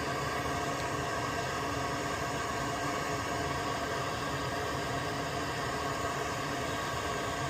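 Soldering fume extractor fan running steadily: an even rushing noise with a few constant tones in it.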